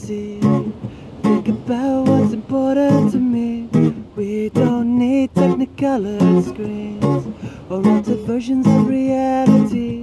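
Acoustic guitar strummed, with a man singing over it.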